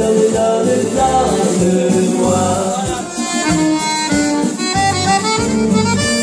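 Chromatic button accordion playing a lively instrumental melody over a rhythmic accompaniment with a pulsing bass.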